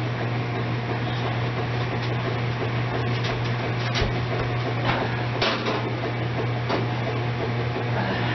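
Steady electric fan hum from a kitchen appliance, a low drone with a hiss over it, while the electric oven's door is opened; a few light knocks and clanks come from the door and oven rack in the middle of it.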